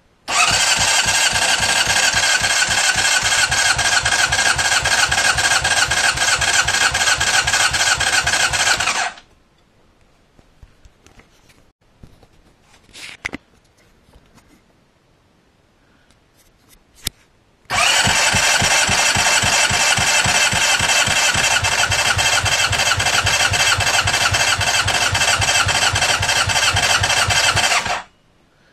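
Motorcycle engine spun over on its electric starter with the spark plugs disconnected, for a compression test with a gauge fitted. It runs in two even cranking runs of about nine seconds each, each pulse a compression stroke, with a pause between them holding a few small clicks. The engine is warm and in good health.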